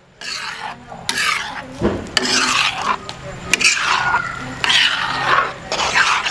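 Utensil stirring and scraping through the aloo matar chaat, a mash of boiled potatoes and white peas with chutneys and spices, in repeated raspy strokes about once a second. One dull thump about two seconds in.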